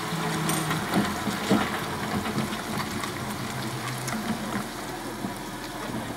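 Trolleybus running under the overhead wires, its trolley heads sliding along the wires with a steady hiss and a couple of sharp clicks about a second in.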